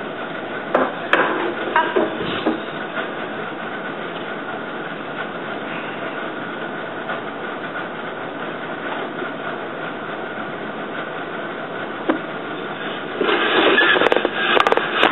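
Wooden floor loom in use: a few sharp wooden knocks in the first couple of seconds and one more later, then a spell of dense clattering near the end as the loom's parts are worked, over a steady background hiss.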